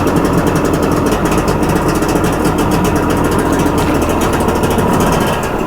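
Personal watercraft engine running steadily with a fast, even pulse.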